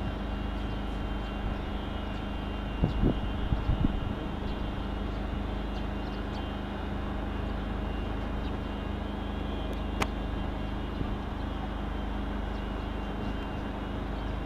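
Steady rumbling outdoor noise with a constant faint hum, broken by a few low thumps about three seconds in and a single sharp click about ten seconds in.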